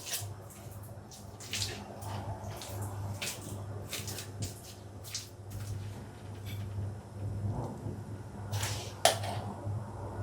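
Kitchen handling sounds during food preparation: scattered light clicks and taps, with a sharper click near the end, over a low steady hum.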